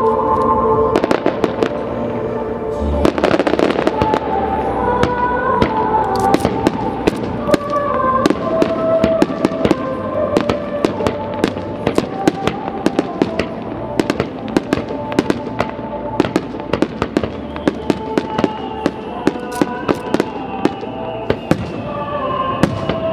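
Fireworks show: dozens of sharp bangs and crackling pops in quick succession throughout, over the music played with the show.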